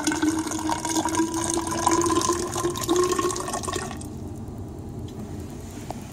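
Liquid TBE buffer being poured into a 250 mL plastic graduated cylinder, splashing, with a pitch that rises slightly as the cylinder fills. The pour stops about four seconds in.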